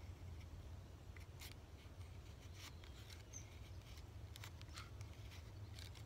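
Razor blade of a Razor-Lite EDC knife shaving thin curls off a damp wooden stick: a handful of short, faint scraping strokes, irregularly spaced.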